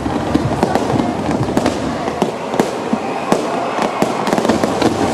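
Ground-fired fireworks: a steady hiss of spark fountains with a dense, irregular run of sharp crackles and pops.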